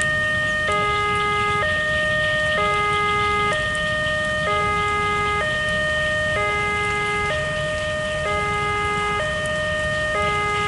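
Railway level-crossing warning alarm sounding with the barrier down and the red light flashing: an electronic two-tone signal that switches between a lower and a higher chord about once a second, the sign that a train is approaching. A low steady rumble runs under it.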